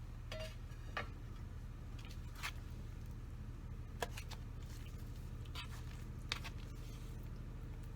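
Faint, scattered clicks and scrapes of kitchen utensils, about seven in all, over a steady low hum.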